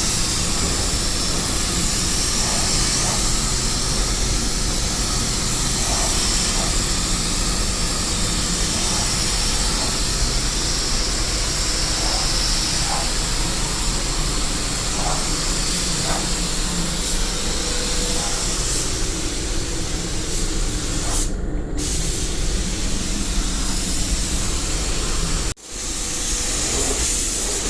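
A steady, loud hiss of spraying air or liquid, which cuts out for a moment near the end.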